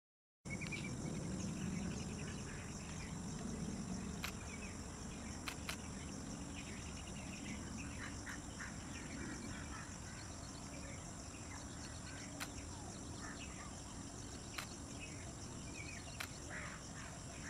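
Birds calling in short, scattered notes over a steady background hiss, with a few faint clicks spread through.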